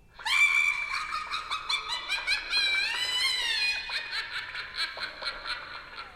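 Ring doorbell app's Halloween alert tone: a high, cackling laugh in rapid pulses that starts abruptly and fades near the end.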